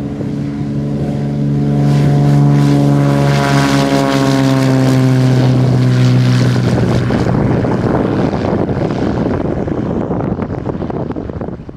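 Beechcraft Bonanza F33's six-cylinder engine and propeller at full takeoff power as the plane lifts off and flies past. The pitch drops gradually as it goes by, leaving a rushing drone that fades as it climbs away.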